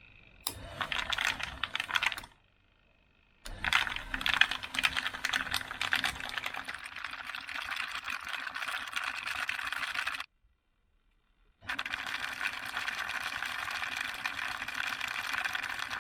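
Vevor mini rotary tumbler running, its drum rolling a load of metal key blanks and abrasive media, making a dense, fast clicking rattle. The rattle stops abruptly twice for about a second.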